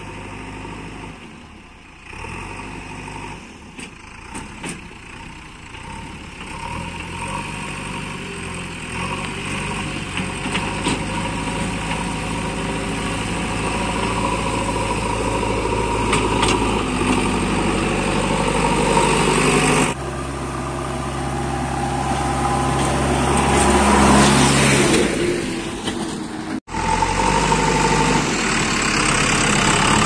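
JCB 3DX backhoe loader's diesel engine running as the machine works and drives closer, growing steadily louder. The sound changes abruptly about two-thirds of the way through and drops out for a moment near the end.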